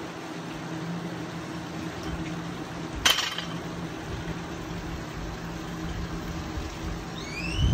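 Gym weights clank once, sharp and metallic with a ringing tail, about three seconds in, over a steady low background hum. Near the end comes a low thud with a few short rising squeaks.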